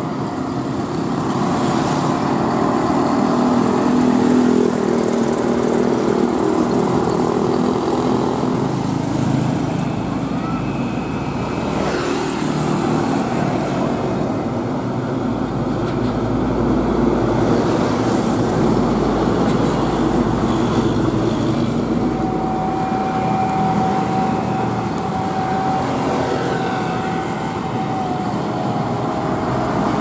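Heavy diesel trucks passing close by one after another, engines running, with road traffic behind. A steady whine holds for several seconds in the last third.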